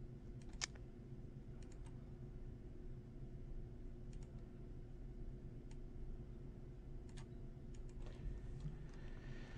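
A few scattered computer mouse clicks, the sharpest about half a second in, over a faint steady low hum.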